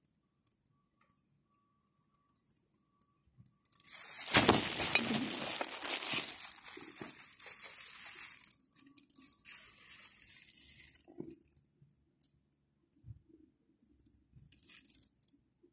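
Thin plastic crinkling and rustling close to the microphone. It starts loud about four seconds in and fades over the next four seconds, with a fainter rustle around ten seconds.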